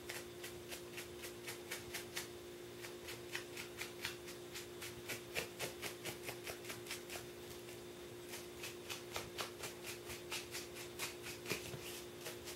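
A cloth rag rubbing wet black acrylic paint off the edges of a small EVA foam armor piece, in quick short swipes about four a second, over a steady faint hum.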